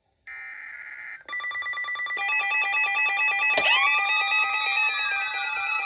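Emergency alert broadcast: the tail of a SAME digital header, a harsh data burst that stops about a second in. It is followed by a synthesized electronic alert melody of fast stepping beeps, which about halfway through sweeps sharply into held tones that slowly slide downward.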